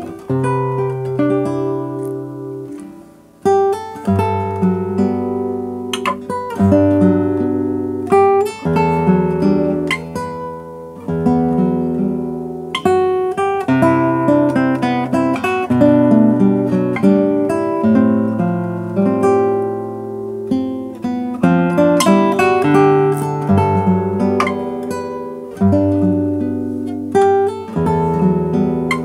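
Solo nylon-string classical guitar played fingerstyle: a melody picked over ringing bass notes. The notes die away into a brief pause about three seconds in, then the playing goes on.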